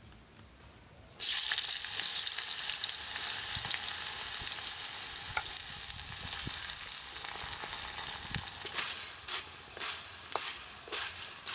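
Sliced ash plantain deep-frying in hot oil in a pan. A loud sizzle sets in suddenly about a second in as the slices go into the oil, then eases into steady bubbling. Toward the end a wooden spatula stirs the slices and scrapes and clicks against the pan.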